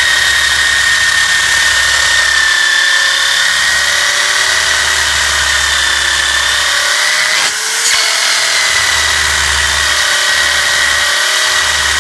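Electric drill running steadily under load, boring out a rivet in a stroller chassis joint. About seven and a half seconds in it briefly slows and picks up again.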